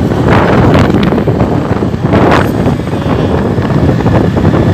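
Wind buffeting a phone's microphone: a loud, rumbling noise with two stronger surges, about a third of a second in and about two seconds in.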